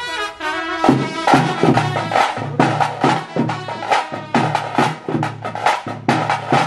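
Tiger dance drumming: after a short falling run of held notes, tase drums beat a fast, even rhythm of about three strikes a second.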